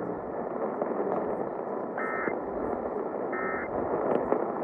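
Broadcast radio static hissing steadily, with two short electronic beeps about a second and a half apart.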